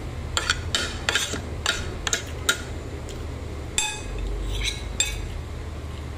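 Metal fork and spoon clinking and scraping against a dish while eating: a quick run of sharp clinks in the first two and a half seconds, then a few more near the end.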